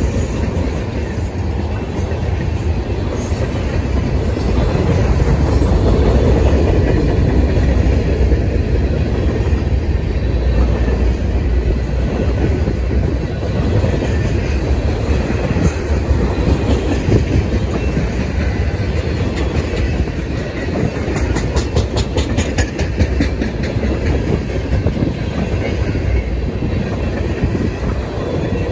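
Freight train of tank cars and lumber-loaded flatcars rolling past close by: a steady rumble of steel wheels on the rails. A run of rapid clicks comes about three-quarters of the way through.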